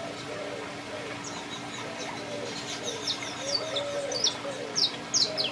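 Aviary birds chirping: quick, high, downward-sweeping chirps that start about a second in and come thick and loud through the rest, over lower wavering calls.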